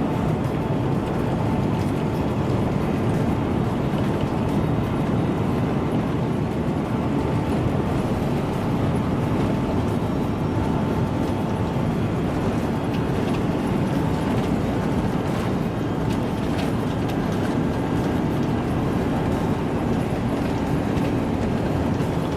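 Steady engine and airflow noise inside the cabin of an Airbus A350-900 airliner, an even rumble with a faint whine.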